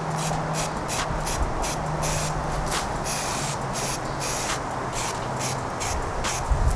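Aerosol can of SEM trim paint spraying in a run of hissing bursts, some short and some about half a second long, over a low steady hum.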